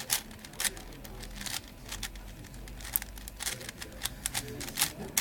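Plastic 4x4 Rubik's cube being turned by hand: irregular sharp clicks and clacks as its layers are twisted.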